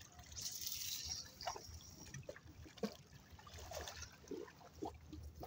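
Cast with a spinning rod: a brief high hiss of the swing and line going out about half a second in. Small river waves then lap at the bank, with a few faint clicks.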